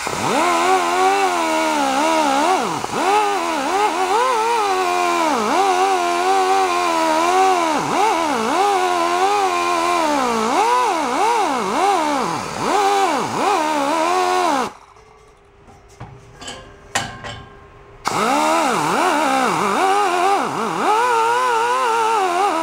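Pneumatic die grinder spinning a brass wire wheel against a brass hose-reel swivel fitting. Its whine wavers up and down in pitch as the wheel is pressed on and eased off. About two-thirds of the way through it stops for a few seconds, leaving a few light clicks, then starts up again.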